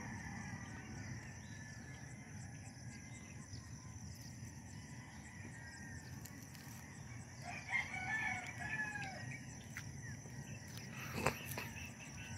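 A single drawn-out bird call with a bending pitch about eight seconds in, over a steady low background rumble, with one sharp click near the end.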